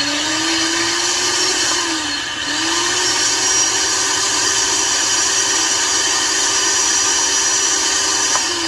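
Countertop blender motor running on frozen fruit, a steady whine that sags in pitch and loudness about two seconds in as it bogs down, then picks back up and holds. The blender is struggling to break up the hard frozen fruit, a sign that it is worn or damaged.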